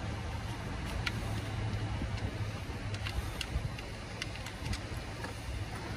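Steady low background rumble with a few faint, light metallic clicks as the loosened 10 mm coil-pack bolt is worked out of its socket by hand.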